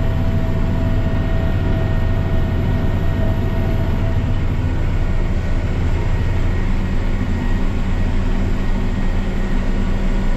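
Tractor pulling a seeder across the field, its engine giving a steady low drone, with a faint steady whine that fades out about four seconds in.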